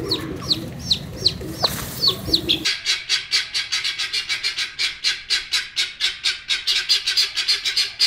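Chickens calling: a chick cheeping in short falling notes, then, about two and a half seconds in, a fast even run of harsh clucking notes, about six a second.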